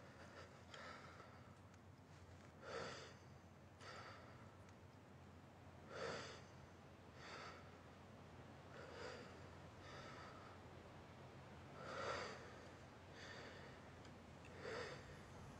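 Slow, heavy human breathing, faint and close: a deeper breath followed by a softer one about a second later, the pair repeating roughly every three seconds over a faint low drone.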